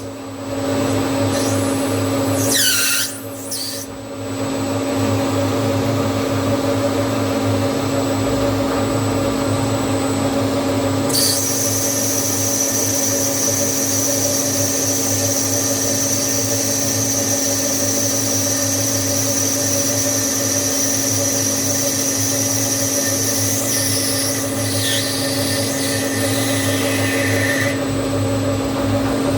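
CNC machine running while machining a brass part: a steady mechanical hum throughout, a whine that glides down and back up about three seconds in, then a high steady cutting whine from about eleven seconds in until shortly before the end.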